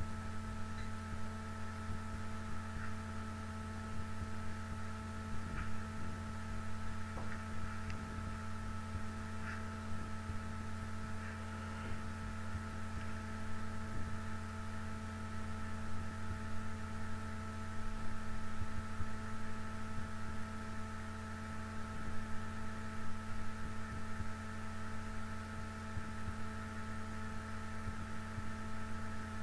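Steady electrical hum: a low drone with several fixed higher tones over it, unchanging throughout, with a few faint ticks in the first ten seconds or so.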